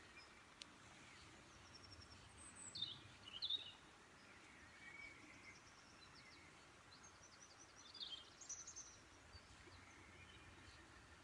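Faint birdsong over quiet riverside ambience: short high sweeping chirps and twittering phrases, loudest about three seconds in and again about eight seconds in.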